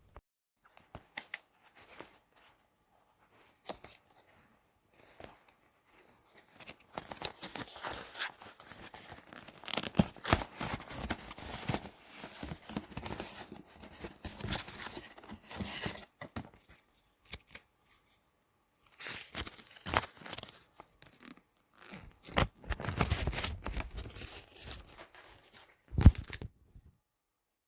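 Plastic crinkling and rustling in irregular stretches, with scattered clicks and a sharp knock near the end.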